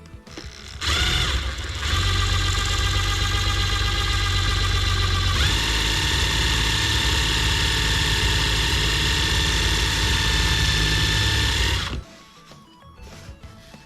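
A small electric motor runs: it spins up with a rising whine about a second in, jumps to a higher speed about halfway through, then holds steady and cuts off suddenly near the end.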